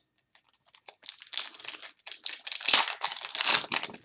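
A Panini Prizm basketball card pack's wrapper being torn open by hand, with a few faint ticks, then a run of crinkling from about a second in that lasts almost to the end.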